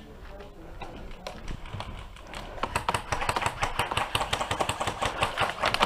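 A rapid, irregular patter of sharp clicks and taps that grows denser and louder about two and a half seconds in.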